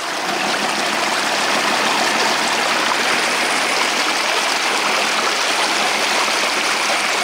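Shallow creek water rushing and splashing around the tires of a six-wheel-drive RC truck driving up through it, growing louder over the first second and then steady.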